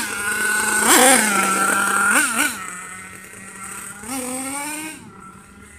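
HPI Nitro Savage RC monster truck's small two-stroke nitro engine revving with the throttle, a high whine that rises and falls. There are quick blips about a second in and twice around two seconds, then it grows fainter, with one more rise about four seconds in.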